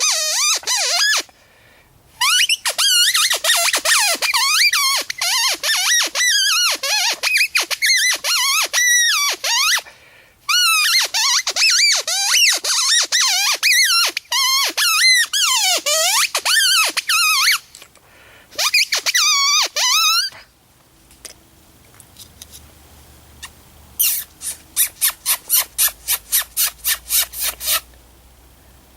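Psycho Tweety predator mouth call blown in long bursts of rapid, wavering high-pitched squeals, imitating a bird in distress to lure a red fox. The squealing stops about two-thirds of the way through. A few seconds later comes a quick run of about a dozen short clicks.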